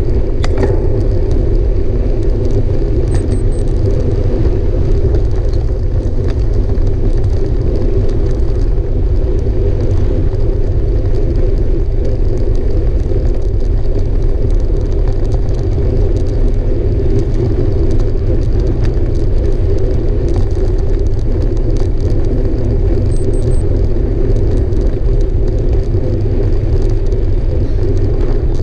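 Mountain bike ridden at speed: a steady, loud rumble of wind on the camera microphone and tyre noise, with light scattered rattles.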